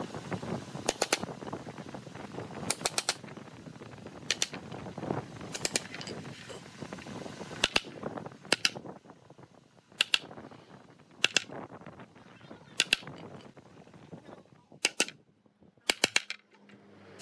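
Hammer striking a wooden-handled chisel to cut a hinge recess into the edge of a wooden door panel: sharp taps in quick clusters of two or three, about one cluster every second or so.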